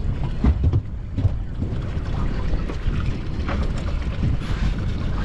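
Steady wind buffeting the microphone on a small boat on open water, a low rumbling noise, with a few knocks and thumps within the first second and a half.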